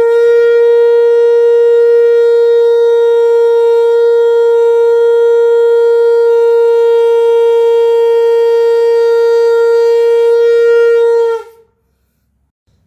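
Conch shell (shankh) blown in one long, steady note held for about eleven seconds. It ends with a slight drop in pitch as the breath runs out.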